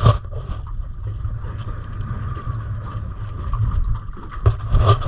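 Steady low rumble of wind on the microphone aboard a small boat, with water around the hull, a faint steady whine throughout, and a few short knocks near the end.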